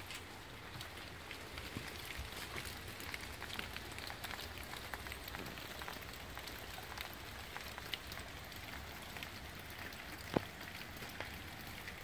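Rain falling on leaves and surfaces: a steady patter dotted with many small drop ticks, with one sharper click about ten seconds in.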